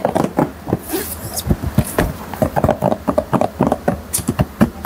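A cardboard product box and plastic packaging being handled: irregular rustling, crinkling and scratching with quick taps.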